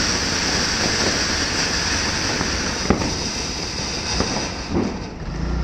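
Large multi-nozzle 'peacock' ground-fountain firework spraying sparks with a steady, loud hissing rush, broken by a few sharp cracks, the sharpest about three seconds in. The hiss thins near the end as the fountain burns down.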